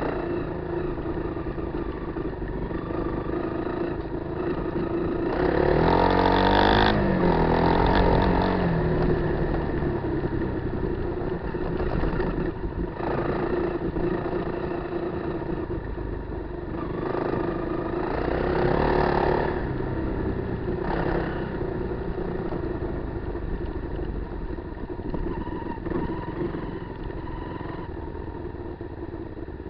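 Kawasaki KLR250 single-cylinder four-stroke engine running off road, revving up and back down twice: about six seconds in and again a little past the middle.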